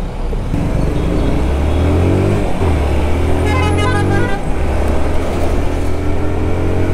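Motorcycle engine accelerating, its pitch rising, with a gear change about two and a half seconds in and a steady climb after it. A horn toots for under a second about three and a half seconds in.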